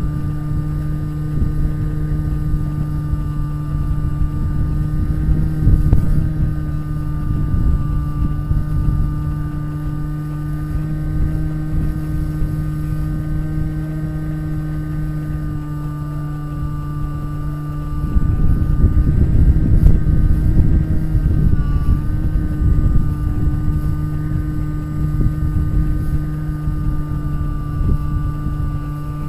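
Bixler glider's electric motor and pusher propeller running at a steady pitch, with wind buffeting the onboard camera's microphone. The wind noise grows louder about two-thirds of the way through, and the motor's pitch dips briefly soon after.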